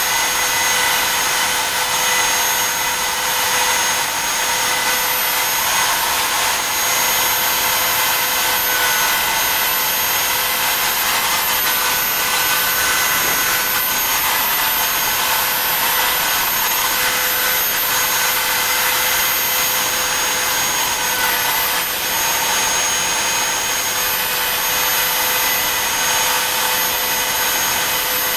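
Bobs E3 desktop CNC router's spindle running with a steady high whine as its V-bit carves star outlines into wood, the pitch dipping slightly a few times as the bit takes load.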